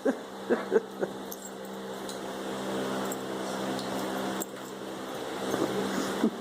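Puppies play-fighting: a few short, sharp yelps in the first second and again near the end, with a light jingle of collar tags, over a steady hum.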